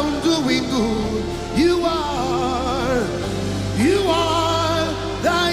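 Live gospel worship music: a singer's long held notes, each swooping up into the pitch with vibrato, three phrases over a steady sustained band backing.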